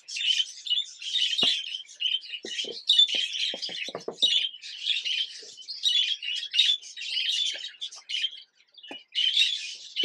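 Budgerigars chattering and chirping almost without pause, with a short break shortly before the end. Scattered light knocks and rustles come from a wooden nest-box tray being wiped out with a paper towel and handled.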